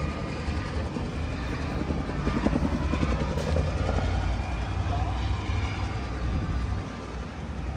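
Steady low outdoor rumble with faint crowd chatter in the background.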